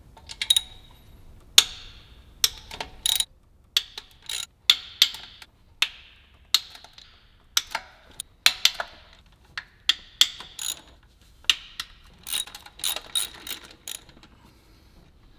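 Socket ratchet clicking in short, irregular runs of sharp metallic clicks as the 10 mm intake-manifold bolts are loosened and backed out.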